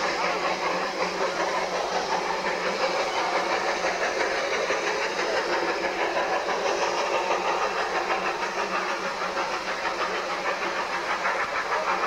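Steady hiss of steam from the Quarry Hunslet saddle-tank locomotive BRITOMART standing at rest.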